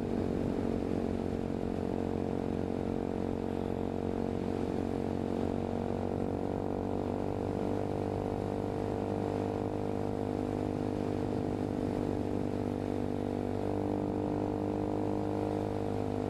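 Hawk 250 motorcycle's single-cylinder four-stroke engine running at a steady speed, its pitch almost unchanged throughout.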